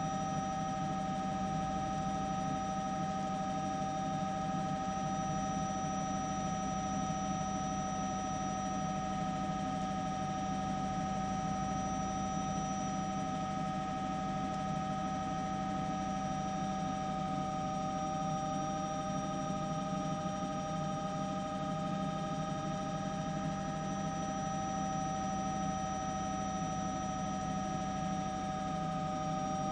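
Steady drone of a helicopter's turbine engine and rotor: several held whining tones over a low rumble, with a faint drift in the highest whine.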